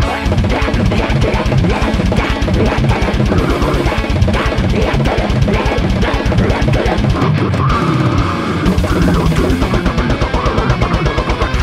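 Technical death metal recording: distorted guitars over rapid, even double-kick drumming, with the kick drums dropping out briefly past the middle.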